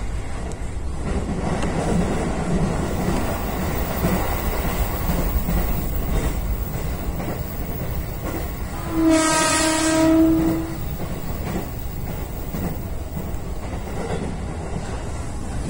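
Electric commuter train running at speed, heard from behind the driver's cab: a steady rumble of wheels and motors. About nine seconds in, a train horn sounds one low blast lasting about a second and a half.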